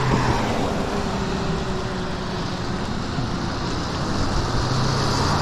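Riding an e-bike on a wet road: steady rush of wind and tyre hiss with a faint steady hum underneath. An oncoming car approaches and goes past near the end, its sound dropping in pitch.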